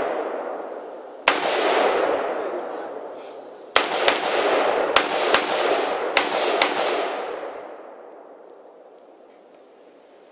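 AR-15 rifle firing single shots at an uneven pace, about seven in all, most of them in the middle of the stretch. Each sharp crack is followed by a long rolling echo that dies away over a few seconds.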